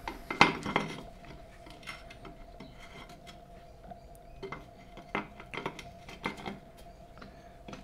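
Light metallic clinks and knocks from a strut top mount with its upper control arms attached being turned over in the hands, the loose arms knocking against the mount, a few at the start and a cluster about five to six and a half seconds in.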